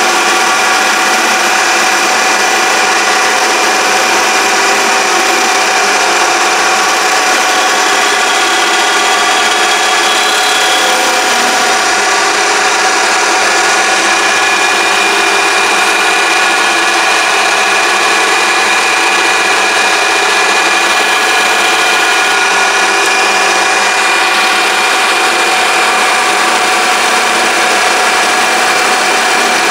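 Mini lathe running steadily: a constant motor whine made of many steady tones, unchanging in level.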